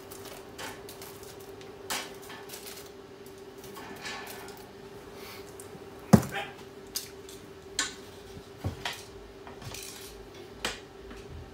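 Metal tongs clinking and knocking against a stainless steel bowl as foil-wrapped roasted onions are dropped in: a handful of separate clinks, the loudest about six seconds in.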